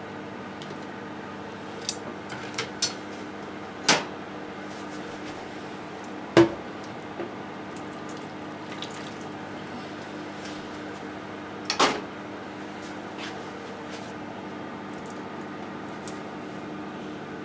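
Hot water poured from a pan over a block of thick fried tofu in a stainless steel sink, with a handful of sharp clinks and knocks of chopsticks, a metal slotted spoon and the pan against the sink. A steady low hum runs underneath.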